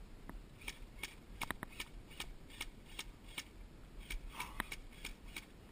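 Airsoft gunfire: a run of light, sharp ticks at about three a second, starting about half a second in and going on until near the end.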